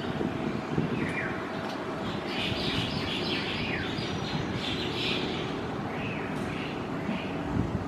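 Songbirds chirping: quick runs of high twittering notes through the middle, with a couple of short falling whistles, over a steady low rumble.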